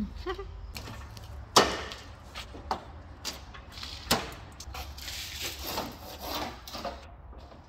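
Knocks and scraping from hands working on a pickup's rust-rotted front fender and wheel well: two sharp knocks stand out, the first the loudest, with lighter taps between and a couple of seconds of scraping and rubbing near the end.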